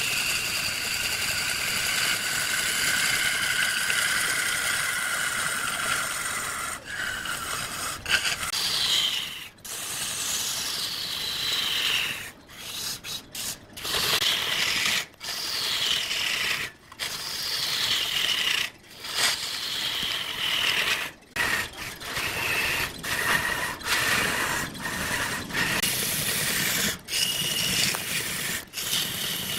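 Wood lathe spinning a large wooden blank while a turning tool cuts it: a steady, noisy, high-pitched screech with held tones that repeatedly slide downward in pitch, broken by several brief dropouts.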